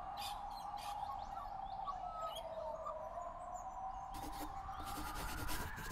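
Faint birds chirping over a steady tone that slowly rises in pitch.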